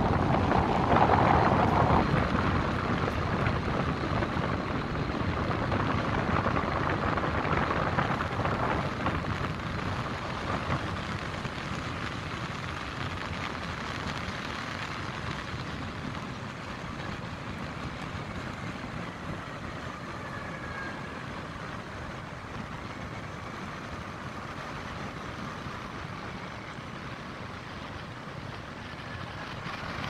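Wind rushing in a snowstorm, gusting harder for the first ten seconds then easing to a steady lower rush, mixed with the distant hum of city traffic.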